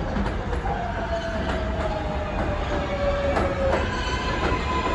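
A New York City Subway 7 train of R188 cars pulling into an elevated station: a low rumble with wheels clicking over the rail joints, and a whine that falls slowly in pitch as the train slows. From about four seconds in, a steady higher tone takes over.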